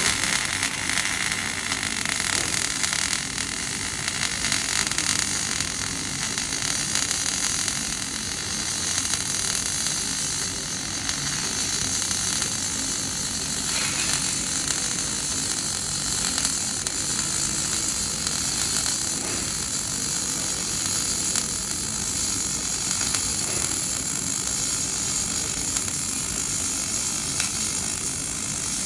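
MIG welding arc burning steadily: a continuous crackling hiss as the bead is laid.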